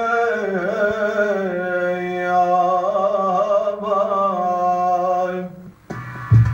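A man singing unaccompanied in Arabic 'ataba' folk style, holding one long, wavering, ornamented note that ends about five and a half seconds in. Just before the end, deep booming show music starts.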